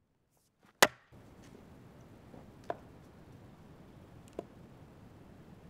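An axe biting into a log on a chopping block with one sharp chop, followed by two lighter wooden knocks a couple of seconds apart.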